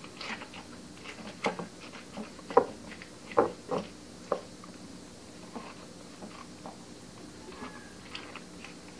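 Coleslaw of shredded cabbage and carrot in a creamy dressing being tossed in a glass bowl with two salad utensils: irregular wet squishing and crunching with short clicks, busiest and loudest in the first half, then sparser and softer.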